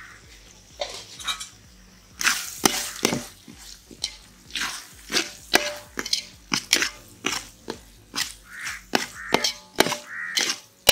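Metal spoon scraping and knocking against the sides and bottom of a metal pot while stirring thick masala paste, in irregular strokes about one or two a second that start about two seconds in.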